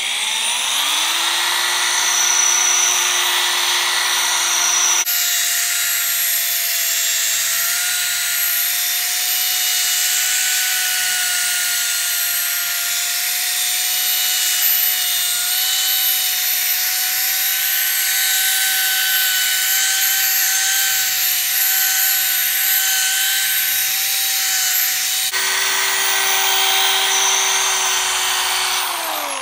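Electric drill running a 3000-grit sanding pad wet against a plastic headlight lens: a steady motor whine over a gritty hiss. It spins up at the start, shifts pitch twice along the way, and winds down at the end.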